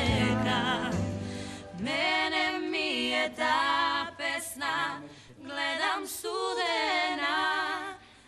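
Singing with heavy vibrato in short sustained phrases. The low instrumental backing drops out about a second in, leaving the voices nearly unaccompanied.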